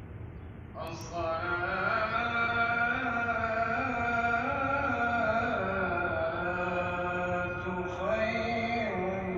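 A man chanting in long, drawn-out notes with wavering ornamental turns, starting abruptly about a second in over a low background hum.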